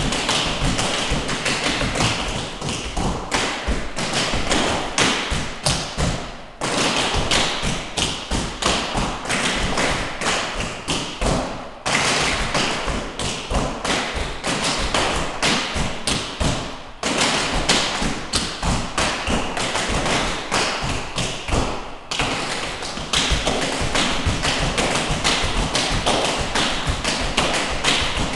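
Tap shoes of several dancers striking a studio floor together, a dense rhythmic run of taps drilling tap rudiments, with a brief pause about every five seconds.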